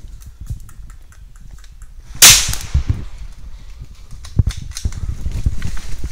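A single loud, sharp crack about two seconds in, with a short fading tail, after faint ticking and before a few low thumps.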